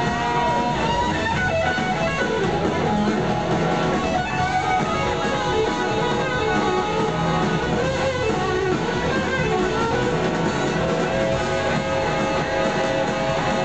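A large live rock band playing, with electric guitars leading over drums.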